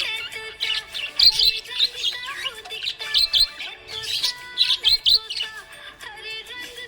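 Budgerigar chirping in quick repeated bursts, over background music with held notes.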